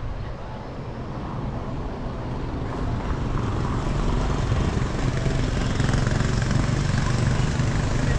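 Car driving, a steady rumble of engine and road noise that grows a little louder a few seconds in.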